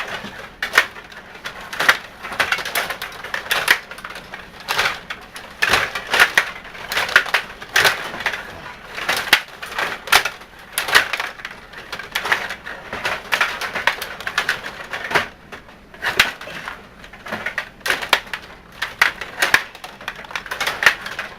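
Rod hockey game in play: a rapid, irregular clatter of the puck, rods and plastic players knocking against each other and the boards.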